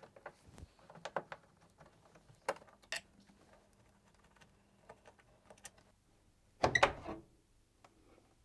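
Light scattered metal clicks and ticks of a Torx screwdriver and fingers working the hinge screws out of a tumble dryer door, then a short louder clatter about seven seconds in as the door is lifted off its hinge.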